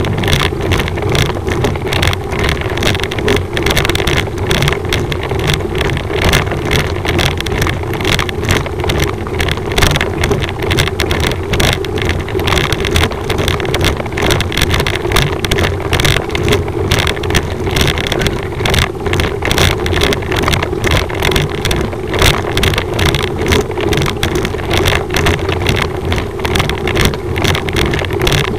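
Steady loud rumble with a dense run of rapid rattling ticks: road vibration and wind buffeting on the microphone of a camera carried on a moving bicycle.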